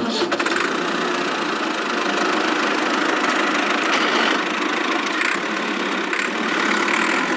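A vehicle engine sound effect running steadily, a rough, even rumble with no clear pitch.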